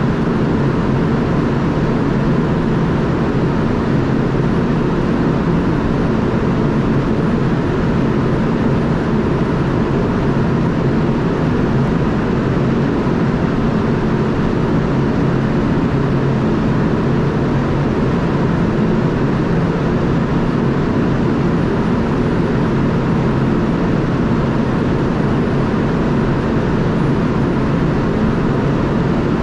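Ship's engine machinery running, a loud, steady drone with a faint steady whine above it.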